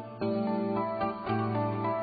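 Background music of sustained, overlapping notes, with new notes coming in about a quarter second in and again a little past a second.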